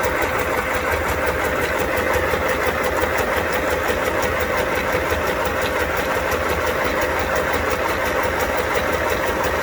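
Fanghua 505A household sewing machine running steadily, needle stitching through folded paper with a fast, even clicking rhythm. It is a test run after its rotary hook was repositioned to cure the bobbin thread not being picked up.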